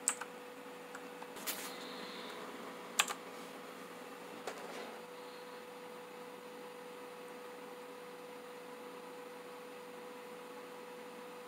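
Rizum Z15 mechanical keyboard with optical blue switches: about four single clicky key presses, roughly a second and a half apart, in the first five seconds. After that only a faint steady hum remains.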